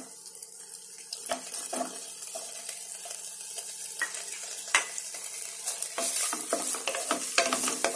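Paneer cubes sizzling as they fry in hot oil in a non-stick pan, with a steady hiss and scattered clicks and knocks from a wooden spatula turning them.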